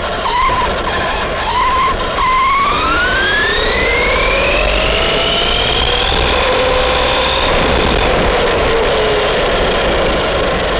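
ARRMA Big Rock V3 RC monster truck's electric motor and drivetrain whining, the pitch rising steadily as the truck speeds up from about two seconds in, holding high, then dropping a little near the end, over a steady rushing noise.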